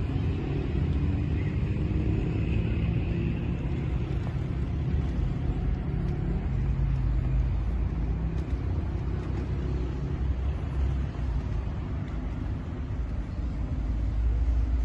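Steady low rumble of outdoor city ambience, with no single sound standing out.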